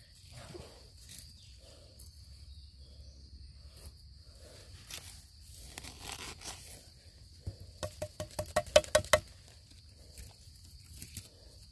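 Gloved hands rustling and scraping through dry bamboo leaf litter around a bamboo shoot. About eight seconds in comes a quick run of sharp knocks, roughly ten in a second and a half, the loudest sound here. A steady high-pitched hum lies under it all.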